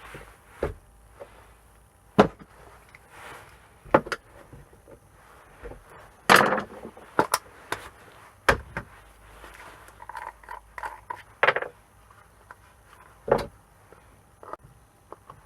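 Irregular sharp clicks and knocks, one every second or two, with some rustling and scraping between them: scrap plugs being taken apart by hand to get the brass out.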